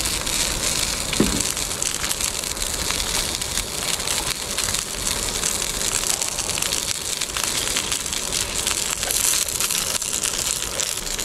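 Crunching of crisp fried chicken being chewed, over a steady crackling hiss.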